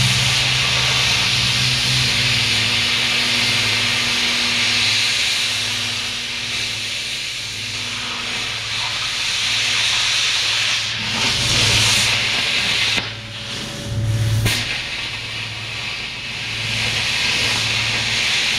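YesWelder Firstess MP200 plasma cutter torch hissing steadily as its arc cuts through 3/16-inch diamond plate steel, with a low hum underneath. The hiss briefly falters and breaks a couple of times about two-thirds of the way through, then carries on.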